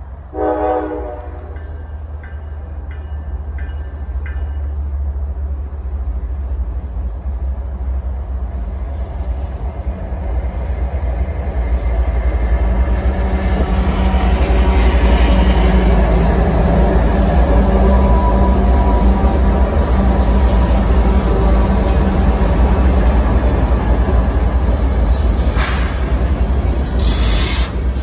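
CSX freight train led by diesel locomotive 911 passing close by: a short horn sounding about half a second in, then the locomotive's engine rumble building to its loudest around the middle as it goes by, followed by the steady rumble and clatter of tank and hopper cars rolling past.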